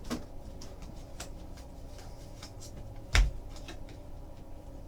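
Light clicks and rustles of trading cards being handled and flipped through, with one sharp thump about three seconds in.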